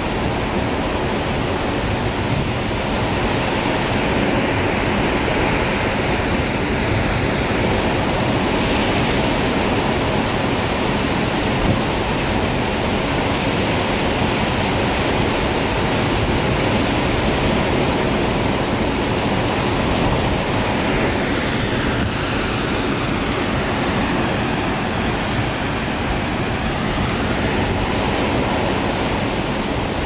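Steady, unbroken rush of the Lower Düden Waterfall pouring off a sea cliff into the Mediterranean, with surf at its foot.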